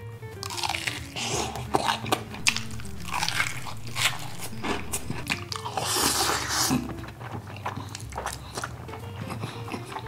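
Crunching bites into batter-fried salmon, with chewing and a long slurp of spicy instant noodles about six seconds in, close to the microphone. Soft background music plays underneath.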